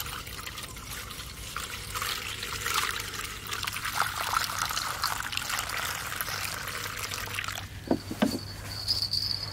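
Water pouring into a small camping kettle in a steady trickling stream, which stops about eight seconds in. A steady high-pitched tone starts just as the pouring ends.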